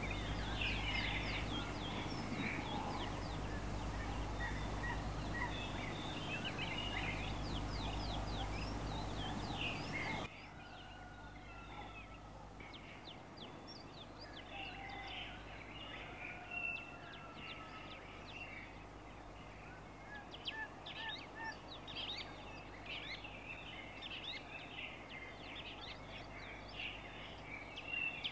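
Many birds chirping and chattering, with short high calls overlapping throughout. Under them is a steady low hum that cuts off abruptly about ten seconds in.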